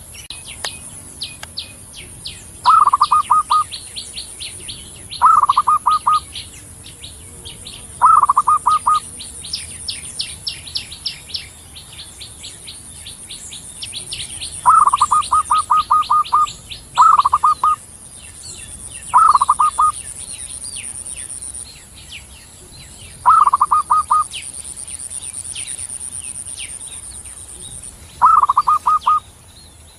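Zebra dove (perkutut) cooing in short bursts of rapid stuttering notes, eight times, two to five seconds apart. Behind it run fast high chirps of smaller birds and a thin steady high tone.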